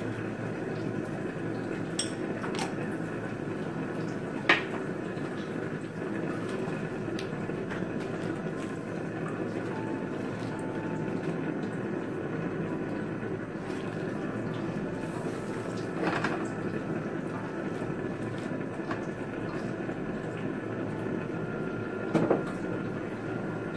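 Beef and chili simmering in sauce in a steel wok on a gas stove, a steady hiss, with a spatula stirring and knocking against the wok a few times; the loudest knock comes about four and a half seconds in.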